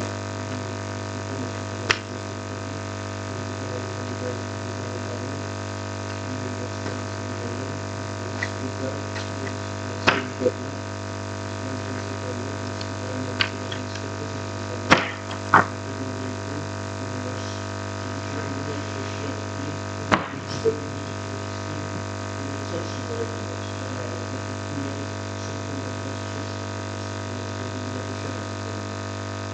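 Steady low electrical hum with room tone in a meeting hall, broken by a handful of short, light knocks and clicks: one about 2 seconds in, two around 10 seconds, a cluster from about 13 to 16 seconds, and two more around 20 seconds.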